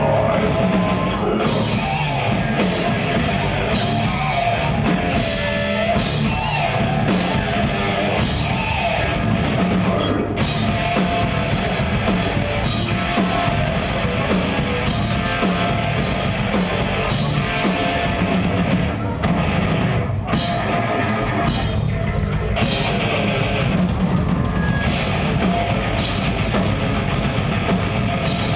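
Live death metal band playing: distorted guitars, bass and a pounding drum kit. A brief break near the middle gives way to the full band again.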